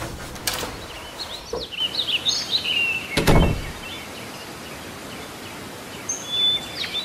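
Birds chirping over a steady background hiss. A door lock clicks at the start, and a dull thud comes about three seconds in.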